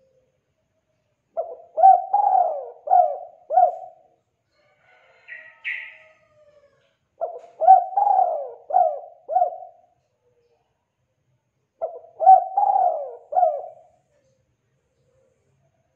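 Spotted dove cooing: three phrases of about five notes each, a few seconds apart.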